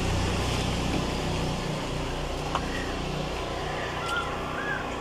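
Steady low engine hum, like a motor vehicle running nearby, with a couple of faint short high chirps in the second half.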